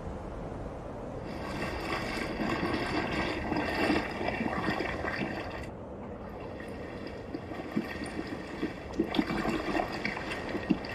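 Water washing and splashing against a rocky shore, with a brief break just before six seconds and choppier splashes from about nine seconds.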